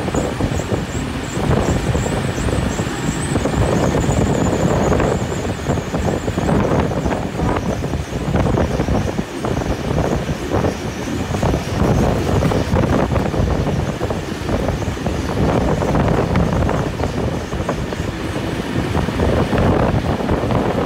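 Heritage passenger train running at speed on the track, heard from an open carriage window: a steady rumble and clatter of steel wheels on the rails, with a second train running close alongside on the parallel track. A faint high squeal sits over the first several seconds.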